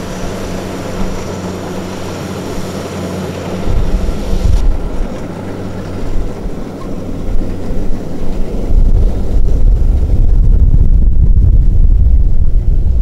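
Farm machine engine running steadily, with low wind rumble on the microphone growing heavier in the second half.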